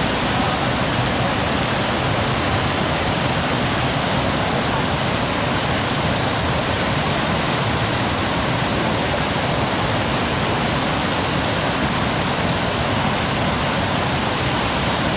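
Steady rushing water, an even unbroken noise.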